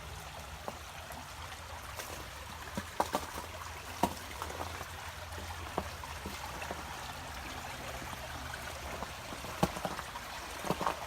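Creek water running and trickling steadily, with a few scattered footsteps on the trail.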